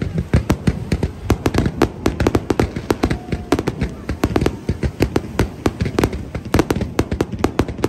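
Fireworks display: a rapid barrage of aerial shell bursts and crackling, several sharp bangs a second without a pause.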